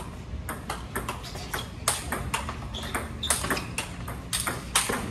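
Table tennis rally: the celluloid-type ball clicking off the rubber paddles and bouncing on the table in a quick, uneven run of sharp clicks, a few each second, some in close pairs of hit and bounce.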